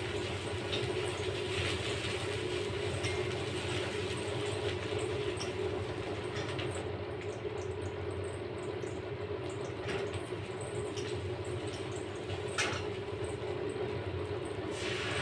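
Onions and spices frying in oil in a steel pan: a soft sizzle over a steady low hum, with a few clinks and scrapes of a metal spatula on the pan, the sharpest about ten and twelve and a half seconds in.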